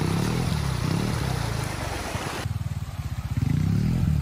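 ATV engine running at low revs, its pitch wavering up and down a little, with a hiss over it that cuts off suddenly about halfway through.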